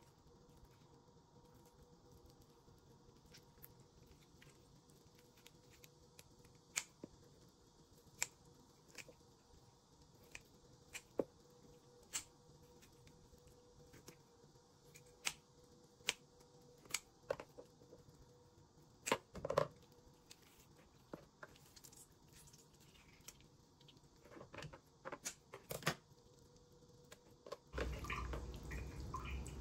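Kitchen scissors snipping raw chicken meat and tendons off the drumstick bones: scattered sharp snips and clicks, with the wet squish of raw meat being handled. A louder, steady handling noise starts near the end.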